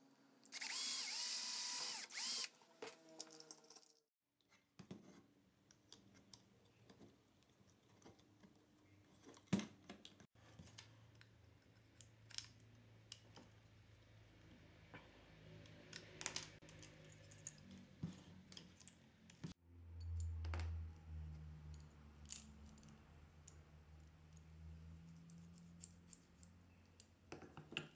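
Cordless drill runs for about two seconds near the start, boring through the plywood motor mount with a whine. After that come scattered clicks and knocks of screws and small parts being handled and fitted, and a low hum swells about twenty seconds in.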